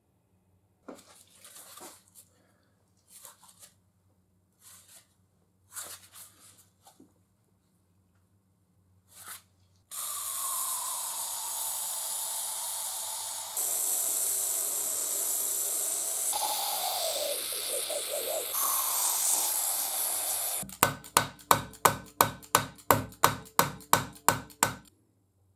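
A few light knocks of parts being handled, then an aerosol can of penetrating oil spraying in a long hiss for about ten seconds into a seized cast-iron Gressel bench vise. Near the end comes a quick run of about fourteen hammer blows on the vise's jaw, three or four a second, which still do not free the deadlocked vise.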